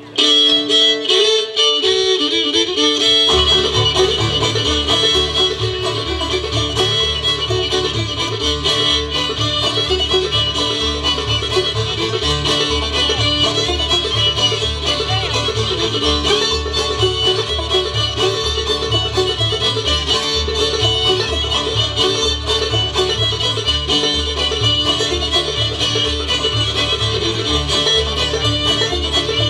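Acoustic bluegrass band playing an instrumental fiddle tune on fiddle, banjo, acoustic guitar and upright bass. Only the higher instruments sound at first; the upright bass and full band come in about three seconds in.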